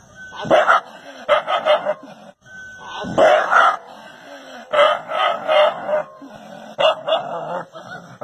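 An animal calling in about five bouts of short, loud, rapid calls, spaced a second or so apart.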